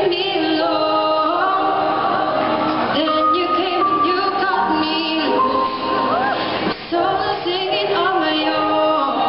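A woman singing a melody into a handheld microphone over instrumental accompaniment, holding long notes with vibrato, heard through the stage sound system.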